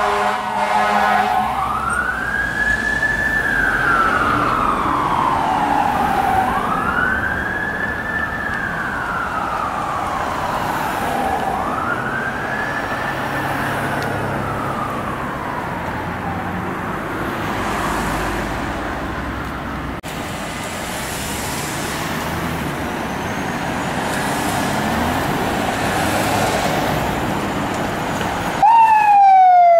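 Fire engine air horn held for about a second and a half, then its siren wailing in three slow cycles, each a quick rise and a long slide down, fading as the truck moves away over traffic noise. About a second before the end a much louder siren tone comes in, falling in pitch.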